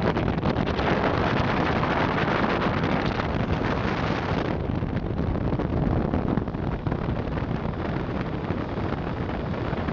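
Open river speedboat running at high speed: the engine's steady drone mixed with rushing water and heavy wind buffeting the microphone. The high hiss eases about halfway through.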